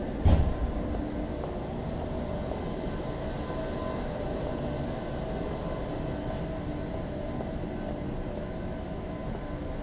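Steady low rumble and hum of a large garage workshop, with faint steady hum tones over it and one low thump just after the start.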